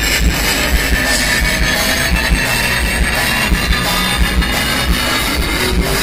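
Live progressive rock band playing: electric guitars over a drum kit with a steady beat, recorded on a phone with poor, muddy sound quality.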